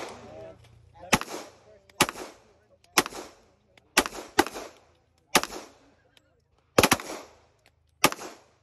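Handgun fired in slow aimed shots, about one a second and nine in all, two of them in quick pairs; each is a sharp crack with a short echoing tail.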